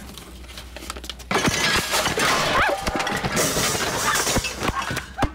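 A kitchen wall cabinet breaks loose and crashes down about a second in, with dishes and pans smashing and clattering for several seconds.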